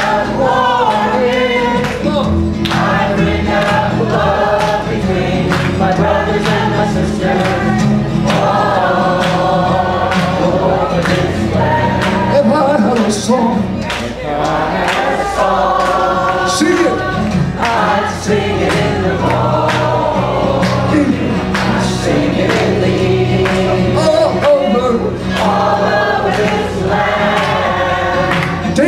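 A folk song sung to a strummed twelve-string guitar, the audience singing along in chorus with the lead singer.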